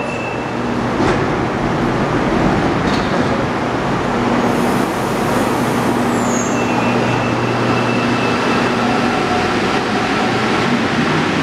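CAF rubber-tyred metro train at a station platform, humming steadily. Two sharp clicks come as the doors close. Then the train pulls away with a high steady motor whine.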